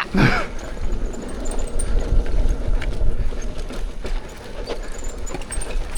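Riding noise from an electric unicycle on a dirt trail: a steady low wind rumble on the microphone with tyre noise and scattered small clicks and knocks, after a short loud burst at the very start.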